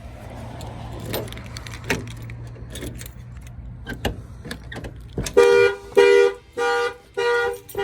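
Ignition key clicks in a 1992 Ford F-150 whose starter is disabled by the alarm's starter kill, so the engine does not crank. About five seconds in, the armed alarm sets off loud honking in rapid even pulses, a little under two a second.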